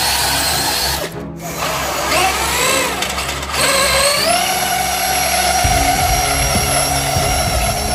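Electric motors of scale RC pullers whining under load on a dirt track. After a short break, the whine rises as a small puller gets going with the weight sled, then settles into a steady high whine, with a rough rumble underneath in the second half.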